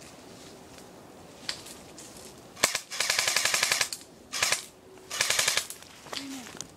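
Airsoft rifle firing: a single shot, then three rapid full-auto bursts of fast, evenly spaced shots, the first and longest lasting about a second.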